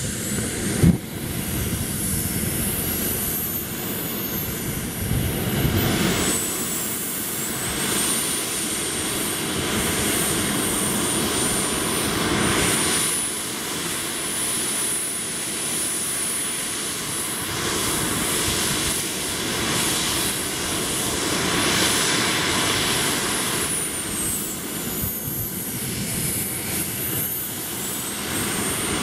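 JetCat P180 model jet turbine running on the ground with a steady high whine. The whine rises about a quarter of the way in, holds, then drops back and climbs again near the end. A short thump about a second in.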